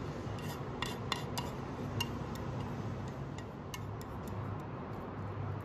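Wooden chopsticks tapping and scraping against a nonstick frying pan while pushing scrambled egg onto a bun: a scatter of light clicks over a steady low hum, mostly in the first four seconds.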